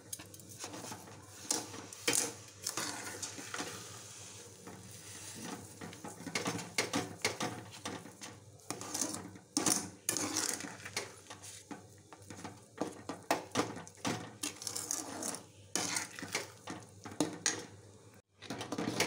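Metal spoon scraping and clinking against a metal pot in irregular strokes, stirring thick rava kesari as freshly added sugar dissolves into it.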